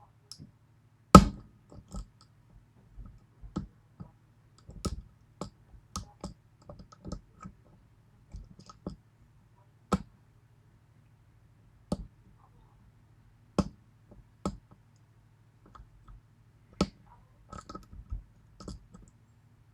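Irregular sharp metallic clicks and taps of a lock pick and tension wrench working the pins of a 6-pin Yale B-ED pin-tumbler lock, with the loudest click about a second in. The pins are being probed one by one in search of one caught in the overmilled keypin chambers.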